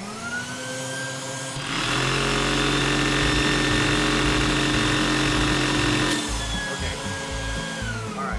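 A vacuum cleaner motor spins up with a rising whine, driving a LEGO vacuum engine with a single sliding valve and a 4x4 piston, which runs fast. The sound gets louder and rougher from about two seconds in until about six seconds in, then the whine falls away near the end as the vacuum winds down.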